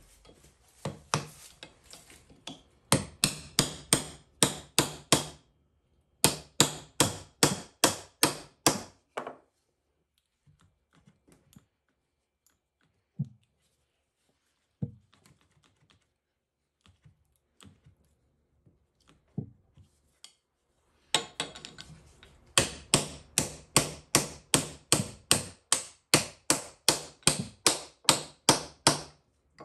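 Rapid, evenly spaced strikes of a hand tool, about three or four a second, in runs of a few seconds. Between the runs come pauses with a few single knocks.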